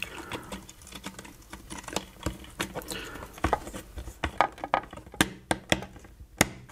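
Small plastic clicks and taps as a circuit board is pressed and shuffled back into a cheap analog multimeter's plastic case. The handling is irregular, like typing, with sharper clicks in the second half.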